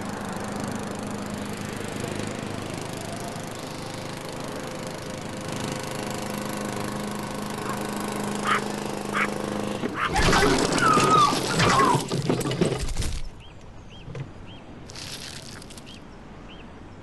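Lawn mower engine running steadily. About ten seconds in it gives way to a louder, rougher noise with squealing tones, which cuts off after about three seconds. Then only a quiet outdoor background with short bird chirps remains.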